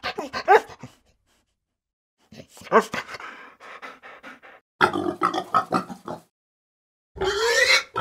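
A dog barking and whining in short bursts of gliding calls. Near the end comes one loud squeal, which fits the pigs that come on screen.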